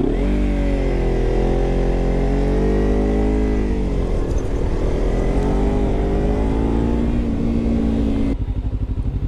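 Motorcycle engine accelerating under heavy throttle: its pitch climbs, falls back about four seconds in and climbs again, then the throttle closes near the end and the engine drops to a low, pulsing note.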